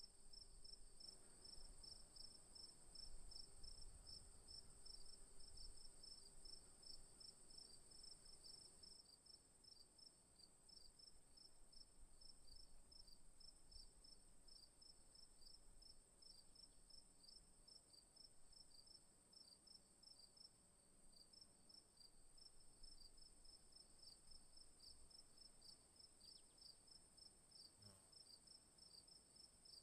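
Faint insect chorus of crickets: one steady high-pitched trill with another insect chirping in quick, evenly repeated pulses a little lower.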